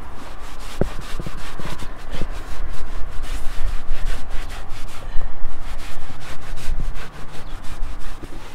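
Rag scrubbing back and forth on an EPDM rubber roof membrane in quick, repeated strokes, wiping the seam clean with solvent before a repair.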